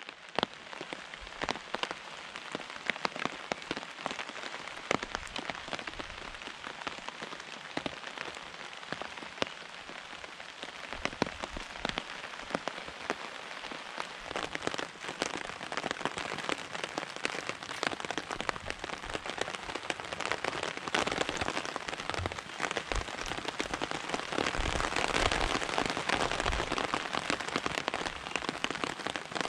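Steady rain, with many separate drops hitting a surface as sharp little taps; it grows heavier and louder about two-thirds of the way through.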